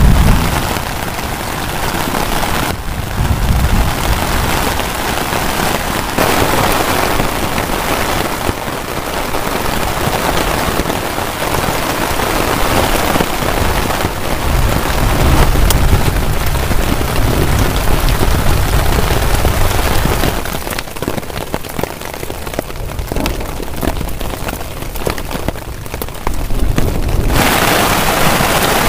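Heavy rain pattering on a nylon tent and tarp, a dense steady hiss, with a low rumble coming and going beneath it. The sound steps quieter and louder abruptly a few times, notably dropping about two-thirds of the way in and rising again near the end.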